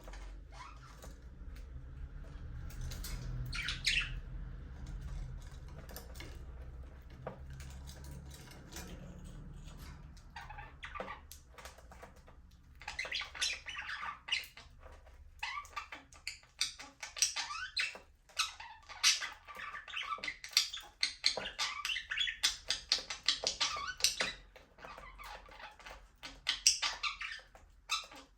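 A flock of budgerigars chattering and warbling in rapid, overlapping chirps. The calls are sparse at first over a low rumble, then build into busy, continuous chatter about halfway through.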